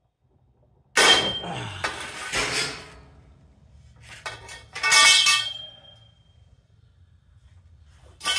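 A seized nut breaking loose under a breaker bar and steel cheater pipe: a sudden loud metallic bang about a second in, followed by clanking and ringing of the steel tools, then another ringing metal clank about five seconds in.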